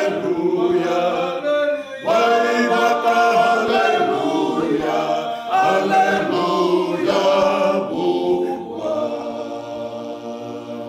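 Group of men singing a Fijian hymn a cappella, in long held phrases with several voices together. The last phrase trails off more quietly near the end.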